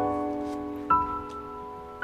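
Slow piano music: a chord struck at the start and another about a second in, each left ringing and fading.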